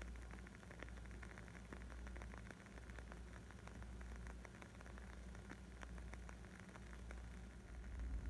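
Wood fire crackling: many small irregular pops and snaps over a steady low rumble.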